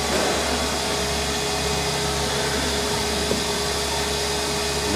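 Steady rushing hum of a fan-driven machine running in the workshop, with one constant tone held through it.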